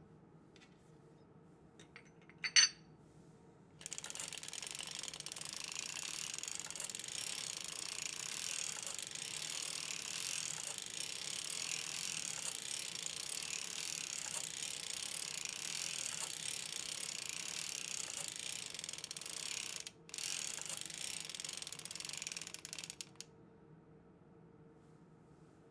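A sharp click, then a hand-cranked circular sock knitting machine running: the latch needles and cams rattle steadily as the cylinder turns and knits rounds. The rattle stops for a moment near the end, runs a few seconds more, then stops.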